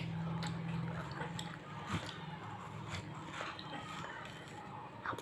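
Someone biting and chewing watermelon: irregular wet crunches and clicks, with a louder one about two seconds in.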